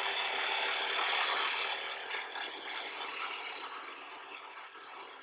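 Skew chisel taking a peel cut across the end of a wooden spindle spinning on a lathe, squaring off the end: a steady hiss of the edge cutting and shavings coming off, slowly fading toward the end.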